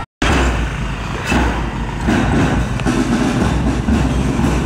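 Motorcycle engines running past close by on a street, a steady rumble of traffic. The sound drops out for a moment at the very start.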